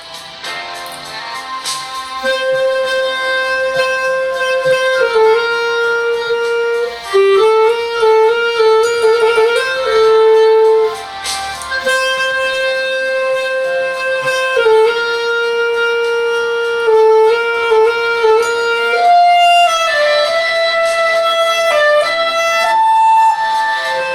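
B-flat clarinet playing a slow melody of long held notes along with a backing track playing from a phone, the melody climbing higher near the end.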